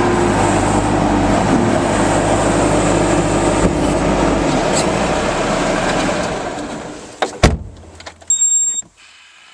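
Bobcat 873G skid steer's 73 hp Deutz turbo diesel running steadily, then winding down and stopping about six to seven seconds in. A sharp click follows, then a short high electronic beep.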